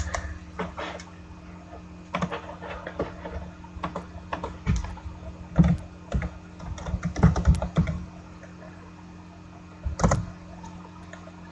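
Typing on a computer keyboard: irregular runs of key clicks with short pauses, then a quieter stretch near the end.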